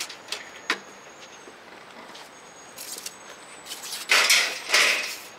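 Protective plastic wrapping rustling and crinkling as it is pulled off a new motorcycle, in two loud swells near the end, after a few faint clicks.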